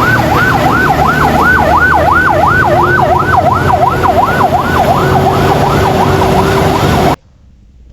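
Ambulance siren in a fast yelp, its pitch sweeping up and down about three times a second over a low rumble, cutting off suddenly near the end.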